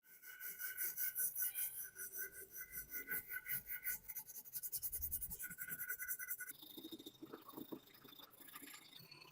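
Rapid back-and-forth scrubbing of a metal part by hand, brush or abrasive rasping on the metal in quick, even strokes of about five a second, with a faint ring from the part. The strokes change about six and a half seconds in and become lighter.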